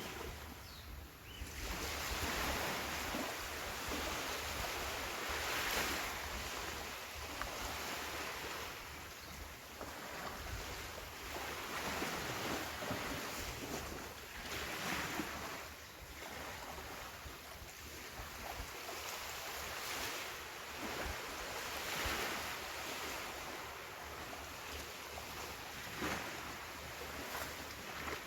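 Ocean waves breaking and washing up on a beach, the surf swelling and fading every few seconds, with some wind on the phone microphone.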